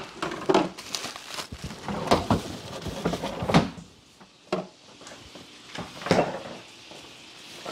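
Refrigerator door pulled open, items set down inside with a series of knocks and clunks, and the door swung shut.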